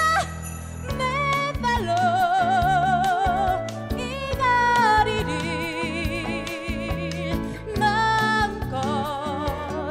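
A woman singing a Korean musical-theatre song live into a handheld microphone over instrumental accompaniment, holding long notes with a wide vibrato.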